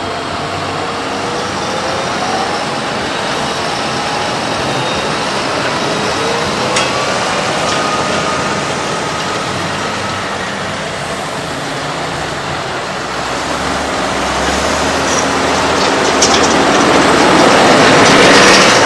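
Fendt 939 Vario tractor's diesel engine running as the tractor drives up and passes close by, growing louder near the end.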